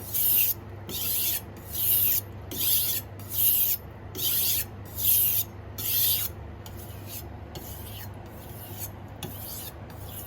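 Kitchen knife blade stroked back and forth on a coarse 400-grit whetstone, a rasping hiss at each pass, about one and a half strokes a second. About six seconds in, the strokes turn quieter, shorter and quicker under lighter pressure.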